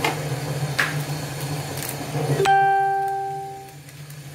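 A single plucked string note, guitar-like, sounds suddenly a little past halfway and rings down over about a second. Before it come a few light clicks over a steady low hum.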